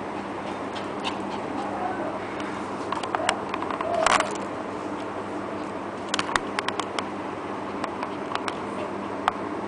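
Shih Tzu puppy close to the microphone, its claws ticking on a tiled floor in scattered sharp clicks, with a brief louder rustle about four seconds in as its fur presses against the camera. A steady low hum runs underneath.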